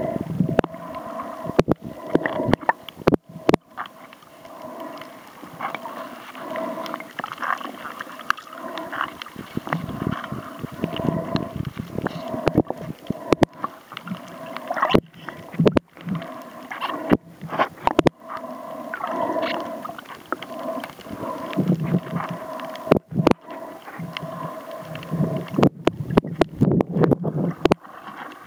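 Muffled underwater sound picked up by a snorkeler's camera: water sloshing and gurgling around the housing, with many sharp clicks and knocks and a steady hum underneath.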